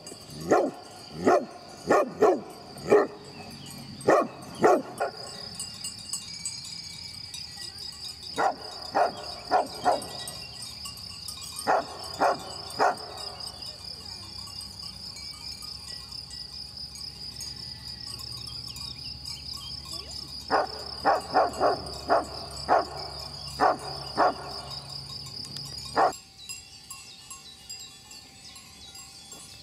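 Livestock guardian dog barking in bouts of short, loud barks: a quick run at the start, a few groups of three or four, a longer run past the middle and one last bark near the end. Under the barking an insect trills steadily on one high note, stopping abruptly with that last bark.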